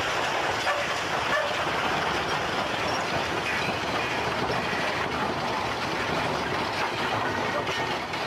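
Passenger rail cars grinding and scraping on after a full-scale train collision test: a steady, dense noise of metal crushing and wheels on rail as the cars buckle, with no separate bangs.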